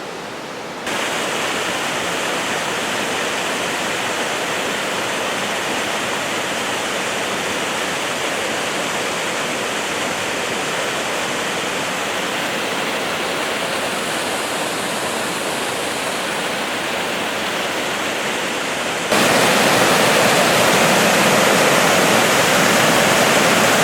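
Steady rushing of cascading water from a mountain creek's falls. It gets abruptly louder about a second in, and much louder again near the end.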